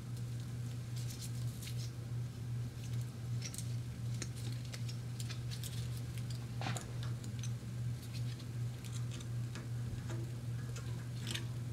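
Faint scattered clicks and ticks of a metal feeler gauge set being handled while a blade is picked out to check valve lash on a small overhead-valve engine, over a steady low hum.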